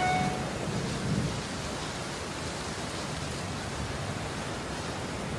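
Steady, even noise like rain, with a low rumble under it. A short pitched tone dies away in the first half second.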